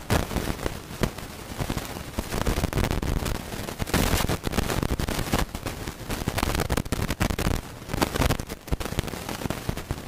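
Storm wind gusting and buffeting the microphone, with waves and paddle splashes slapping against a kayak in loud, irregular bursts.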